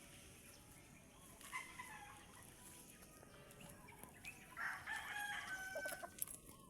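Rooster crowing: a short call about a second and a half in, then a full crow lasting over a second from about the middle.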